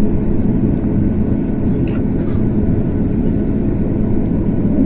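Cabin noise of a Boeing 737 MAX 8-200 on the ground before takeoff: its CFM LEAP-1B engines at low thrust give a steady hum over a continuous low rumble.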